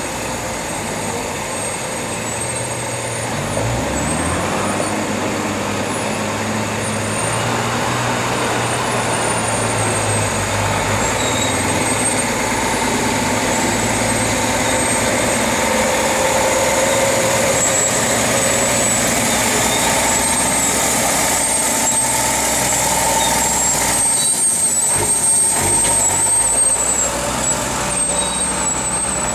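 Mercedes-Benz Unimog 1300's diesel engine running under load as the truck crawls over a steep, rutted off-road track. Its note rises about four seconds in, then rises and falls with the throttle.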